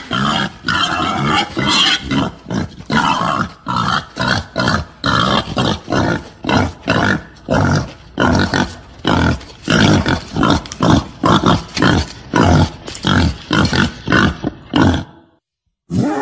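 Wild boar grunting in a long rapid series of short grunts, about two to three a second, a recorded boar call used as a hunting lure. The grunting breaks off briefly near the end.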